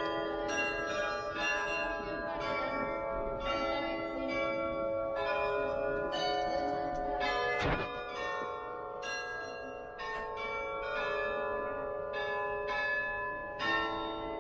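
The tuned bells of the Graz Glockenspiel playing a slow melody, about one or two notes a second, each note ringing on under the next.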